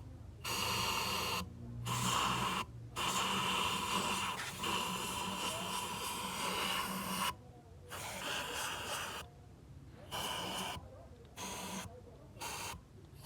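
A hissing noise in repeated bursts of one to several seconds, each starting and cutting off abruptly, with short silent gaps between them. The bursts are longest in the first half and grow shorter and quieter later on.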